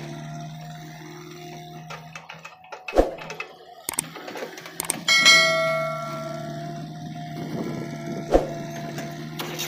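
Subscribe-button animation sound effects: a few sharp clicks and a notification bell ding about five seconds in that rings out and fades over a second or so. Under them runs the low, steady hum of an engine.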